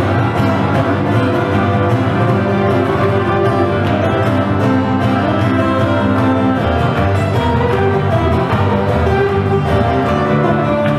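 Small live acoustic band playing, with acoustic guitars.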